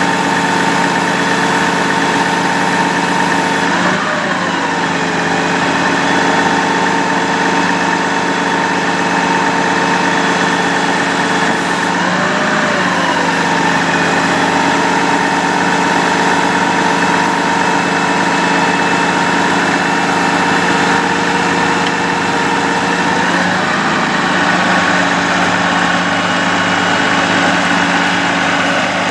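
Sterling Bullet bucket truck's Cummins inline-six diesel idling with the PTO engaged, driving the hydraulics while the Altec AT37-G boom is lowered. Its pitch briefly rises and falls back three times, about four, twelve and twenty-four seconds in.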